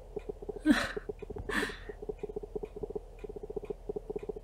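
Camera autofocus motor hunting for focus: a steady, rapid clicking buzz. Two short breathy exhales from a person come through about a second in and again just after.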